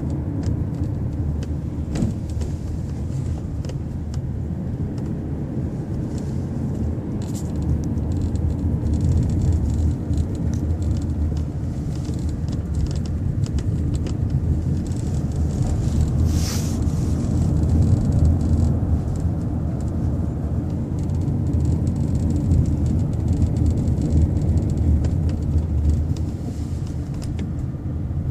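Road and engine rumble inside the cabin of a moving 1998 Lexus LS400, with faint irregular clicks and rattles from the roof, the fault the car is being recorded for. A brief hiss about halfway through.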